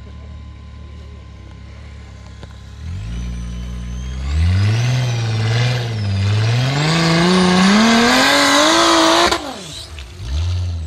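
Tube-frame rock-crawler buggy's engine idling, then revved hard under load from about three seconds in. The pitch wavers and then climbs steadily as the buggy powers up a steep, loose rocky slope. Near the end the throttle is lifted abruptly and the engine drops back toward idle.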